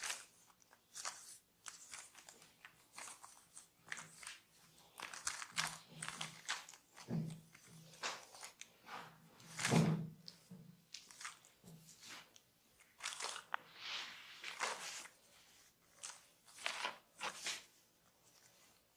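A barber's hands massaging skin and hair: an irregular run of short rubbing and scratching strokes, about one or two a second, with one stronger stroke about ten seconds in.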